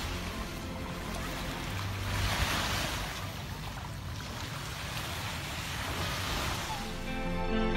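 Water washing and splashing with wind buffeting the microphone, swelling and easing every few seconds, as a swimmer and a dog paddle through the water.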